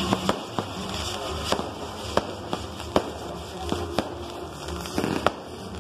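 Castillo fireworks tower burning: a steady hiss of sparks from its spinning wheels and fountains, broken by irregular sharp pops and bangs about every half second to second.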